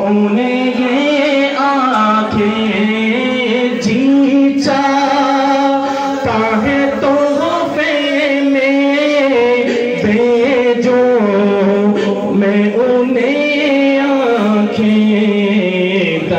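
Male naat reciter singing an Urdu naat into a handheld microphone, an ornamented, sliding melody, with a steady low drone held beneath the voice.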